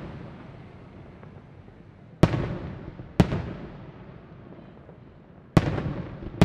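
Aerial fireworks shells bursting: four sharp bangs in two pairs, the bangs in each pair about a second apart, each trailing off in a long echoing decay.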